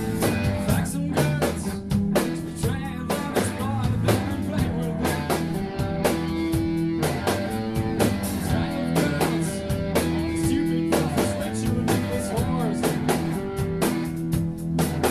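Rock song playing, with guitar and a drum kit keeping a steady beat.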